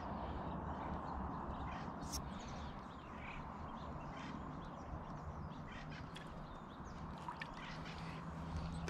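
Bullfrogs calling faintly over a steady outdoor hiss, with a low drawn-out call near the end.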